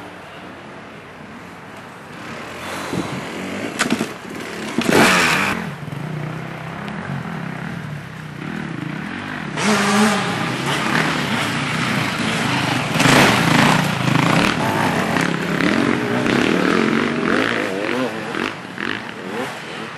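Off-road motorcycle engines revving and running on a muddy forest trail, getting louder from about ten seconds in, with the pitch rising and falling as the throttle is worked.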